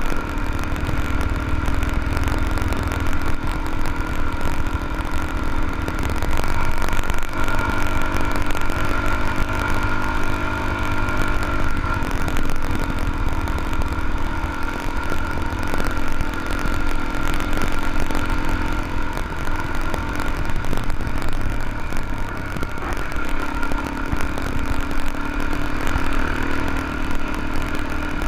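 Dual-sport motorcycle engine running under way on a gravel dirt road, its note easing and picking up again a few times with the throttle.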